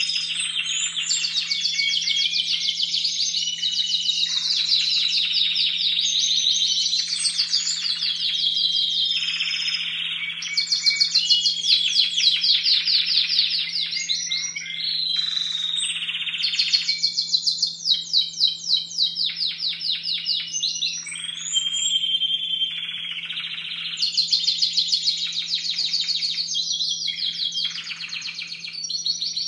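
Young Timbrado Español canaries singing: an unbroken run of fast trills and rolls, one phrase of a few seconds giving way to the next. The birds are in competition-cage training and their repertoire is not yet fully formed. A faint steady low hum sits under the song.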